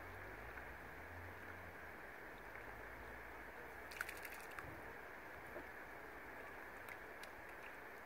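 Faint, steady outdoor lakeside ambience with water gently lapping against moored boats, and a brief cluster of clicks about halfway through.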